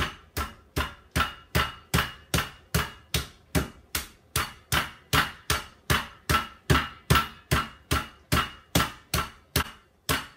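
Meat mallet pounding chicken breasts inside a plastic zip-top bag on a board, a steady run of sharp blows about two and a half a second, flattening the breasts thinner.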